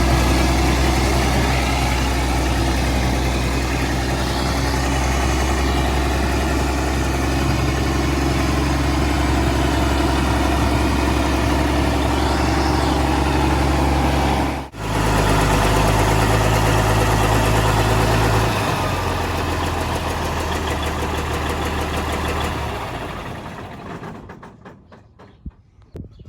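Steiger Panther ST325 tractor's diesel engine idling steadily. The sound breaks off for an instant about 15 seconds in, its note changes about 18 seconds in, and it fades away over the last few seconds.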